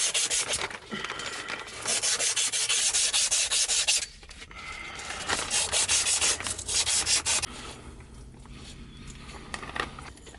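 Old copper water pipe being scrubbed by hand with an abrasive cloth or pad, rapid back-and-forth strokes in three runs of a couple of seconds each, cleaning the pipe to bright metal; the scrubbing stops a couple of seconds before the end.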